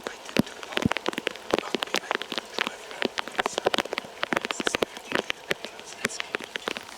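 Rain falling, with many separate drops striking close to the microphone as quick, irregular ticks over a soft hiss.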